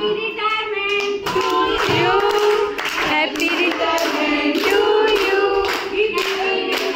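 A group of women singing together while clapping along in a steady rhythm, about two claps a second, as a cake is cut.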